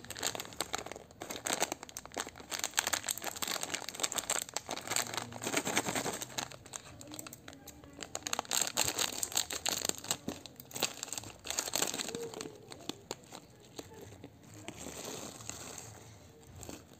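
Foil-lined plastic snack packet crinkling loudly as it is handled and opened, a dense crackle of rustles. Near the end the small round pilus snacks are tipped out of the packet into a hand.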